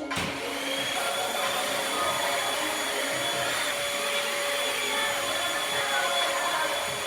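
Vacuum cleaner switched on, its motor whine rising as it comes up to speed in the first second, then running steadily.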